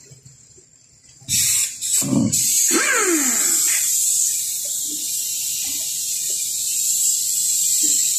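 A steady, loud spraying hiss that starts suddenly about a second in and keeps going.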